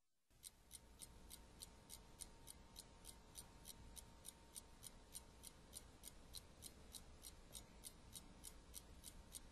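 A clock ticking faintly and evenly, about three ticks a second.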